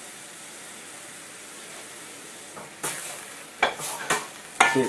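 Chicken pieces sizzling steadily in a frying pan that has just been deglazed with boiling water, stirred with a wooden spoon. From about three seconds in come a few sharp knocks and bumps.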